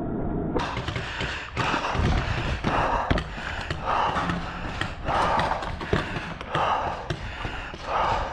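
Footsteps on grass with gear rustling, a paintball player on the move, a scuffing step about once a second and a few sharp clicks between.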